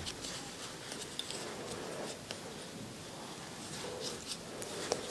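Faint rustling of yarn and a crochet hook worked by hand to make chain stitches, with a few scattered light clicks.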